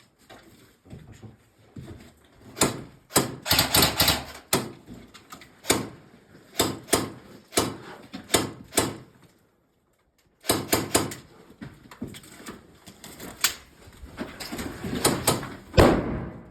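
Airsoft guns firing: a series of sharp clacks, some single and some in quick runs of several, with a brief drop to silence about ten seconds in.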